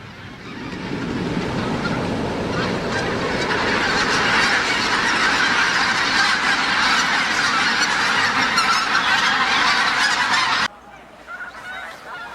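A flock of wild geese honking together, many calls overlapping, swelling over the first two seconds. The sound cuts off abruptly near the end, leaving a few fainter goose calls.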